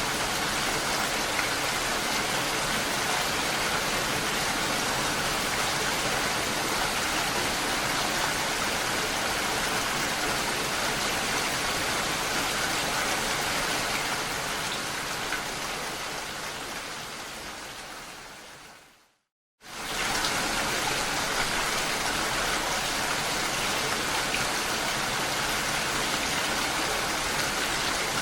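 Steady rain falling on a lake, an even dense hiss of drops. Partway through it fades out to a brief silence, then comes straight back at full level.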